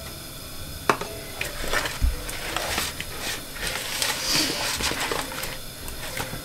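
Hands rubbing seasoning into whole raw snapper in a plastic bowl: irregular wet rubbing and scraping, with a sharp knock against the bowl about a second in and another near two seconds.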